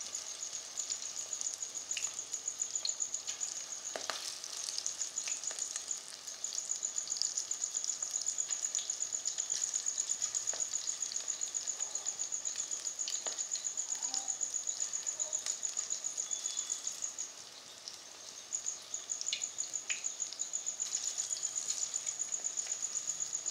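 Pakoras deep-frying in a kadhai of hot oil, sizzling and crackling steadily. Over it runs a high, fast-pulsing trill, the loudest sound, which stops for about a second roughly three quarters of the way through and then resumes.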